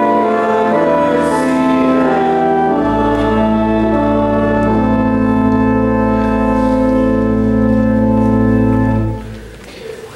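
Church organ playing slow sustained chords, with deep pedal bass notes coming in about three seconds in. It ends on a long held chord that cuts off about nine seconds in.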